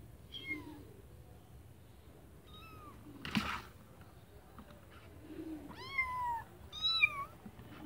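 Kittens meowing: four high-pitched calls that rise and fall, the last two longer and louder. There is a short burst of scratchy noise about three seconds in.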